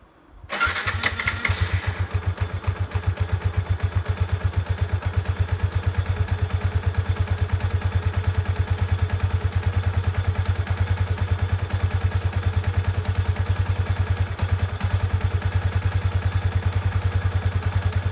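Yamaha Y15ZR's 150 cc single-cylinder four-stroke engine starting about half a second in and then idling with a steady, even beat, its clutch housing newly replaced after the old one's rivets failed.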